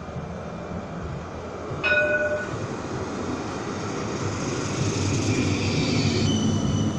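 CAF Urbos low-floor tram pulling in to the platform: a low rumble of steel wheels on the rails. A short warning-horn tone sounds about two seconds in. The rumble then grows louder, with a high whine as the tram runs past and slows.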